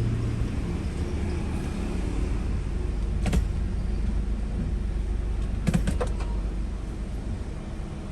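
Chevrolet Cruze 1.8 engine running steadily, with a sharp click about three seconds in and a short cluster of clicks near six seconds.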